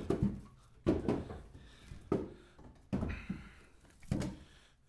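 Split ash firewood knocking and clattering as logs are pulled from a pickup bed and stacked, about five sharp knocks roughly a second apart.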